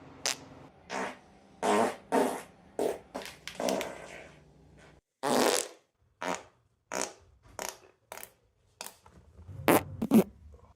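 A string of about fifteen short human farts, one after another with brief gaps, each a quick sputtering or buzzing blast; a couple are longer and drawn out.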